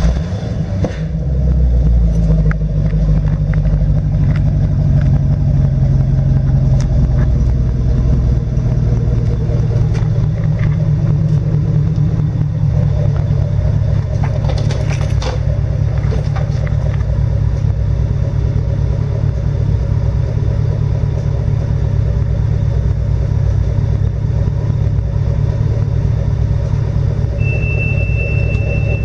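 2012 Chevrolet Camaro's L99 6.2-litre V8 idling just after start-up through a GM Performance off-road axle-back exhaust, a steady deep rumble from the tailpipe. The idle is a little higher and stronger for the first several seconds, then settles.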